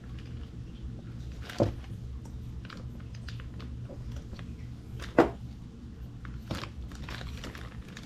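Scattered small clicks with two sharper knocks, about a second and a half and five seconds in, from metal engine parts and tools being handled, over a steady low hum.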